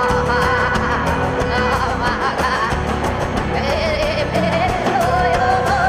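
Live band music: drums keeping a steady beat over bass and guitar, with a wavering lead melody above.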